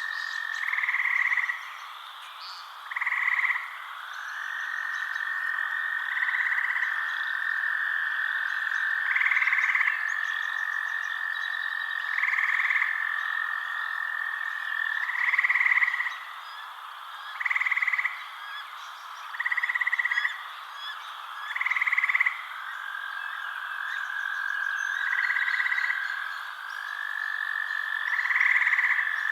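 Night-time frog chorus: a steady high trill with a louder short call breaking in about every two to three seconds.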